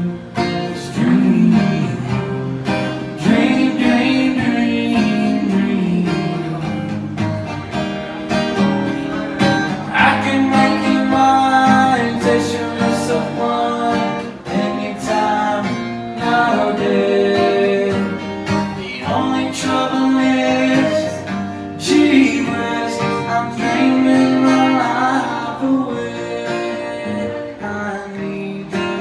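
Acoustic guitar music, strummed chords under a melody line, playing an instrumental break between sung verses.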